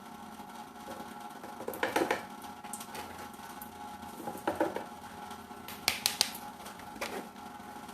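Kitchen utensils and containers being handled: four short bursts of clinking and knocking over a faint steady hum.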